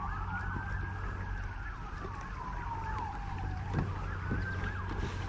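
Emergency vehicle siren in the background, wailing slowly up and down in pitch: it rises for about a second, falls for nearly three, then rises again near the end.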